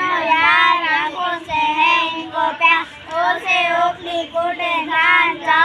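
Two young boys chanting a school poem together in a sing-song tune.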